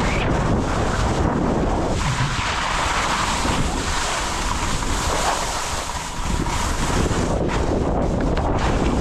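Wind buffeting the GoPro's microphone with a low rumble, over the hiss and scrape of skis sliding through soft spring slush, which swells for a few seconds in the middle.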